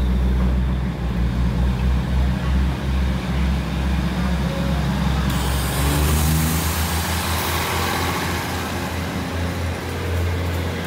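Diesel passenger train moving past close by: a steady low engine drone, with rolling wheel and rail noise growing from about halfway through.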